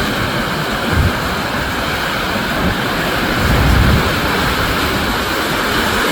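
Big ocean waves breaking on the shore: a steady, loud rush of surf, with wind rumbling on the microphone about a second in and again around four seconds.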